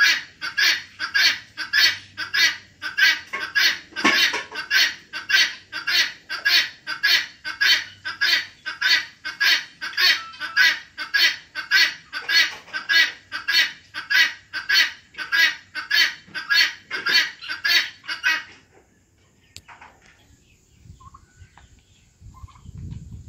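Helmeted guineafowl giving its harsh, rapidly repeated cackling call, about two calls a second, which stops abruptly about 18 seconds in. A low rumble follows near the end.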